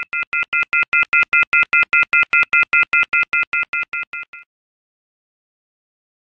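Rapid electronic beeping, about five beeps a second, each beep a steady chord of a few high tones; it swells at first and fades out about four seconds in.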